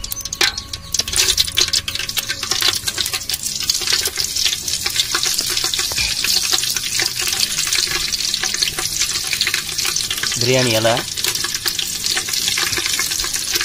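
Whole spices and bay leaves sizzling in hot sesame oil in a metal pot, with a steady hiss that builds after the first second. A few sharp clicks near the start as the spices drop into the oil.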